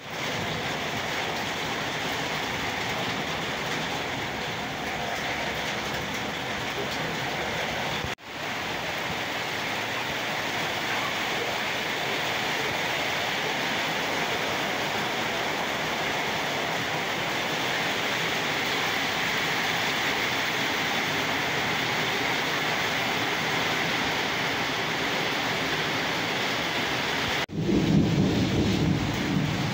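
Steady rain falling on a road and bare ground, a continuous even hiss that breaks off briefly twice, about eight seconds in and near the end. After the second break a vehicle goes by on the wet road, louder and lower than the rain.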